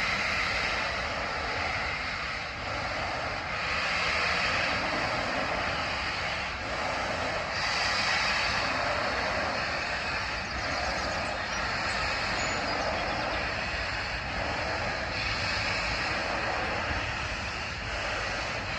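Railway locomotive noise: a steady rushing roar over a low rumble, swelling and easing every few seconds.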